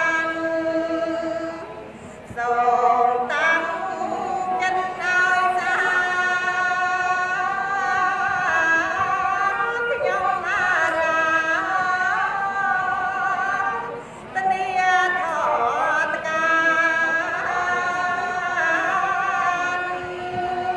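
A woman singing Khmer smot, the solo Buddhist chant, into a microphone: long held notes that waver and turn slowly. She breaks off briefly about two seconds in and again around fourteen seconds.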